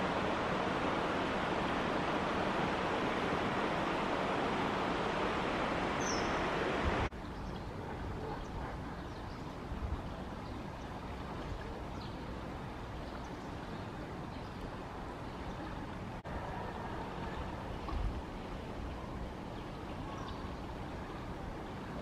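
Shallow stream water running steadily. It is loud at first and cuts abruptly to a quieter rush about seven seconds in. One short high chirp comes just before the cut, and a few low thumps follow later.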